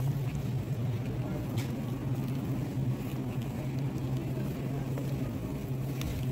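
Steady low hum of grocery-store refrigerated display cases and freezer chests, with a few faint clicks and rustles.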